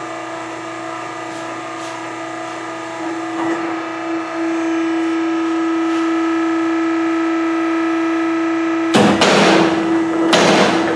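Pull-test rig running with a steady, even-pitched hum as it loads a pipe clamp toward breaking, getting louder about three seconds in. Near the end a series of loud bangs comes about a second apart.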